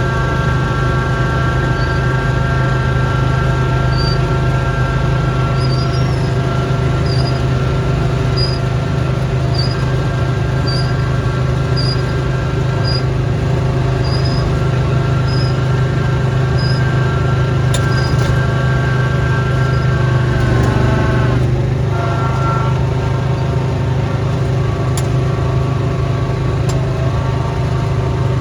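Snowblower's small gasoline engine running steadily, dipping briefly in pitch about twenty seconds in as it takes on load. A faint high chirp repeats roughly once a second through the first half.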